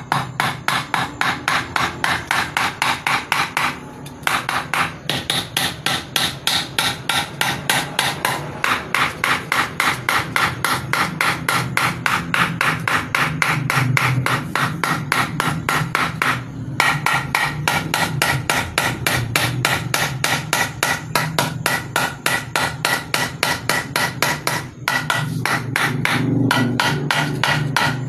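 Hammer striking wood in a fast, steady rhythm of about four blows a second, with a few short breaks.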